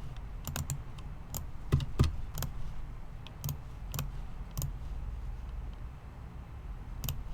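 Computer keyboard keys being tapped in short, irregular clicks, with pauses between them.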